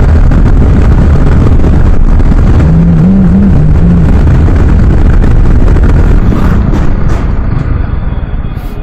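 Riding on a Yamaha R15, a single-cylinder sport bike: a steady, loud rush of wind noise on the camera with the engine running underneath. The noise eases off noticeably near the end.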